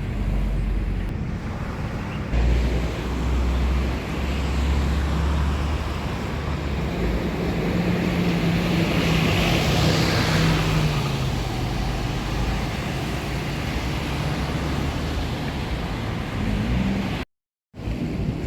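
Strong wind buffeting the microphone, a constant low rumble and rushing, swelling to a louder rush about halfway through. The sound cuts out briefly near the end.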